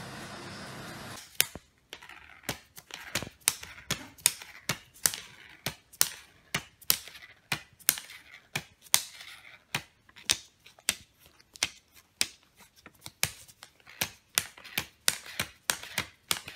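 A long run of sharp crackling clicks, about two or three a second and unevenly spaced, from a cat nosing and pawing at a pile of plastic banknotes.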